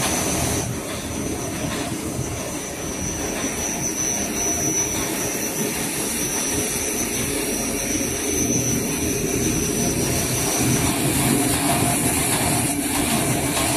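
Bulk-bag (FIBC) fabric folding machine running: its electric motor and rollers make a steady mechanical whir, with a thin high whine that stops about eleven seconds in.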